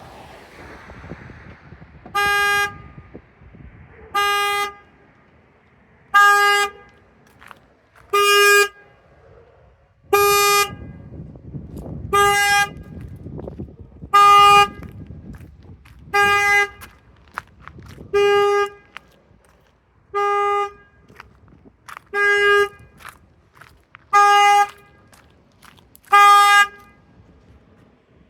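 2012 Fiat 500 Sport's car alarm sounding the horn: thirteen short, steady honks on one note, about half a second each and evenly spaced two seconds apart, the alarm's triggered pattern.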